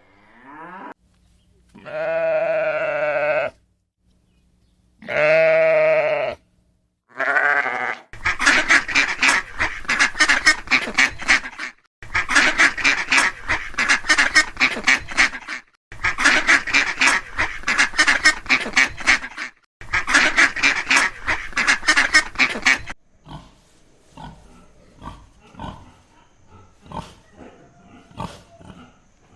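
A sequence of farm animal calls. First come two long, wavering bleats and a short third one, then four runs of rapid, harsh repeated calls, each a few seconds long, and near the end faint scattered clicks.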